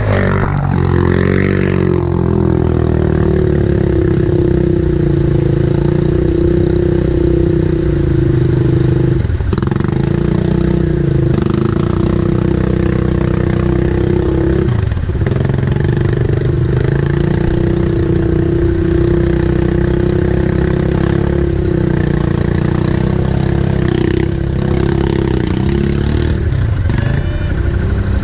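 ATV engine pulling at a steady throttle: it revs up at the start, then holds an even pitch, with two brief dips where the throttle eases off before it picks up again.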